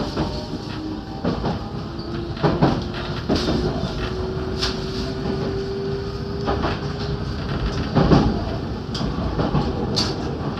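JR 313-series electric train running along the track: a steady rumble with irregular knocks of the wheels over rail joints. A thin whine holds a near-steady pitch through the middle.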